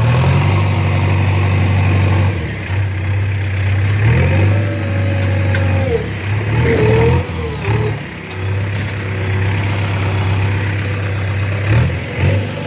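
JCB 3DX backhoe loader's diesel engine running steadily while digging, its note shifting under load. A higher whine glides up and wavers for a few seconds in the middle.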